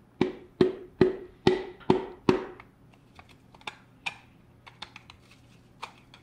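The handle end of a rubber mallet tapping a piston through a ring compressor into a cylinder bore of an Oldsmobile 455 V8 block: six sharp taps about two and a half a second, each with a short metallic ring. They stop about two and a half seconds in as the piston slides home easily, and only faint light clicks follow.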